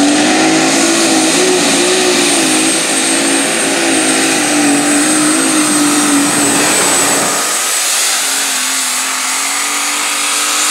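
Light Super Stock pulling tractor's turbocharged diesel engine running at full power as it drags a weight-transfer sled, its pitch wavering, with a steady high whine over it. About seven seconds in the deep low end drops away and the engine sounds lighter.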